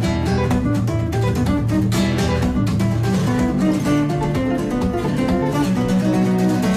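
Background music led by a strummed and plucked acoustic guitar.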